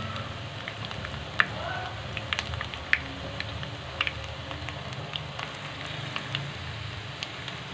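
Shredded-potato lacha pakoras deep-frying in hot ghee: a steady sizzle with sharp pops and crackles scattered through it.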